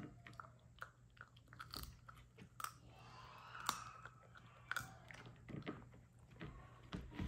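Puppy chewing and crunching a hard, crumbly chew treat: irregular crunching bites, with a couple of louder crunches near the middle.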